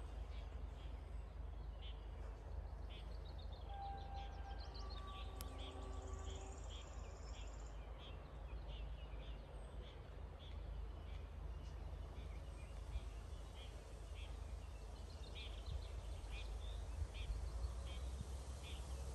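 Faint outdoor ambience: a steady low rumble under many short, high chirps that keep repeating, with a few brief clear tones about four to six seconds in.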